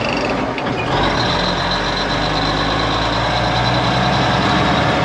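Old Ford water truck's engine running steadily, heard from inside the cab. From about a second in, a steady high whine sits over the engine sound.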